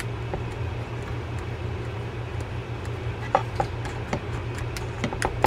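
Small irregular clicks and taps of the metal and plastic parts of a baitcasting reel being handled, coming more often in the second half, over a steady low hum.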